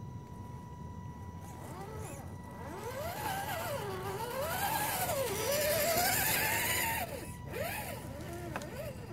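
Electric motor and gear whine of a radio-controlled scale crawler truck, swooping up and down in pitch with the throttle as it crawls. It grows louder as the truck comes close, with a crackling hiss of dry leaves under the tyres, and drops away about seven seconds in.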